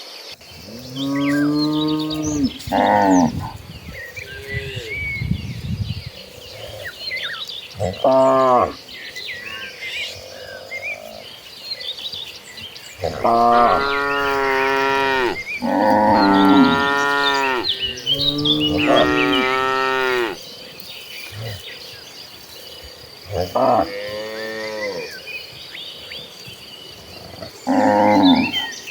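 Cattle in a herd mooing repeatedly, a series of long calls, several overlapping in the middle, over a steady high chirring of insects.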